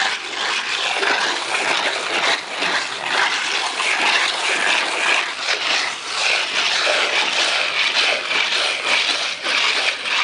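Plastic float scraping and smoothing wet render along the bottom of a wall: a continuous rasping swish that swells and dips with each stroke.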